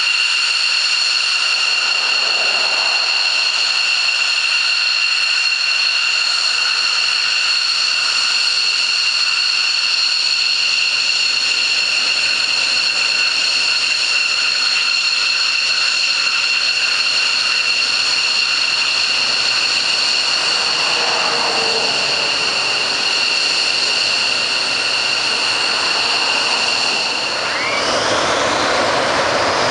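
Twin Pratt & Whitney F100 turbofan engines of McDonnell Douglas F-15C Eagle fighters running at taxi power: a steady, piercing whine made of several high tones. Near the end a rougher rushing sound swells in underneath as the jets sit lined up on the runway.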